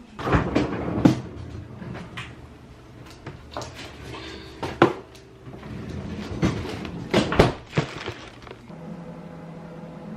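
Kitchen clatter: cupboard doors and cookware knocking and banging in irregular bursts. A steady hum sets in near the end.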